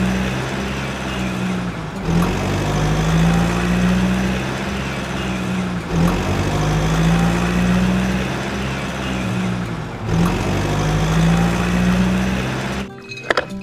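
Engine sound running steadily, its low hum swelling and dropping in a cycle that repeats about every four seconds, cutting off suddenly near the end.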